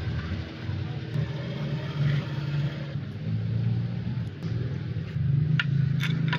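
An engine running with a low, uneven hum whose pitch rises and falls, and a few sharp clicks near the end.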